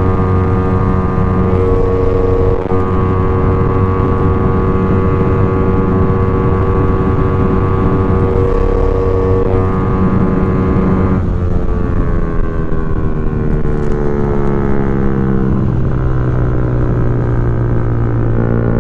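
Suzuki Raider F.i 150's single-cylinder four-stroke engine under the rider, running at a steady cruising speed. About eleven seconds in, the engine pitch falls smoothly as the throttle is rolled off and the bike slows. It then holds steady at a lower pitch near the end.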